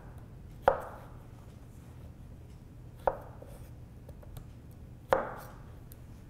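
Chef's knife slicing zucchini into bâtonnet sticks, the blade knocking down onto a wooden cutting board three times, about two seconds apart.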